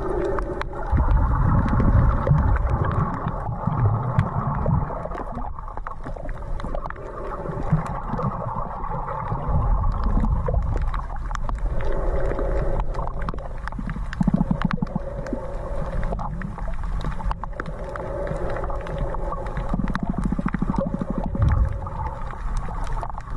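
Muffled underwater sound picked up by an action camera in its waterproof housing: a low rumble and sloshing of water that swells and fades, with many scattered clicks.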